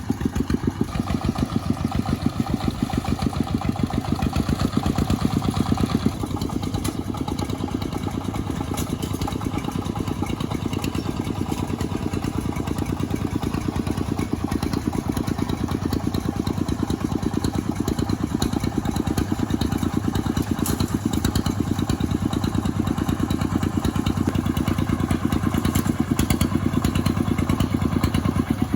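A small engine running steadily with a fast, even firing beat. It gets slightly quieter and duller about six seconds in.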